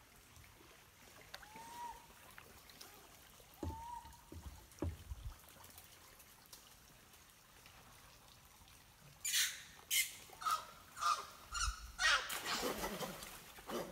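Rhesus macaques belly-flopping into a river. After a quiet stretch with two short animal calls, a quick series of sharp splashes starts at about nine seconds, each one cracking like a .22 rifle shot. It runs into a longer burst of splashing near the end.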